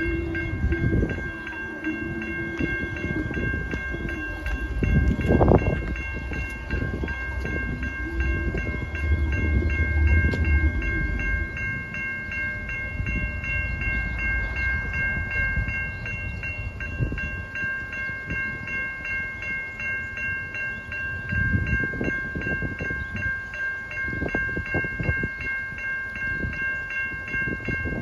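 Railway level crossing warning bell ringing continuously with fast, even strikes, while the crossing lights flash. Low rumbling noise swells under it, loudest in the first half.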